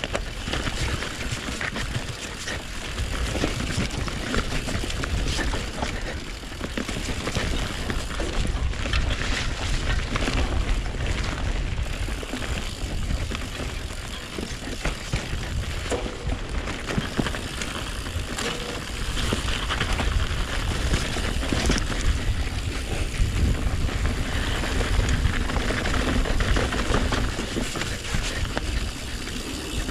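Mountain bike descending a rough enduro trail: tyres running over dirt and rock, the bike rattling and knocking over bumps, over a steady low rumble.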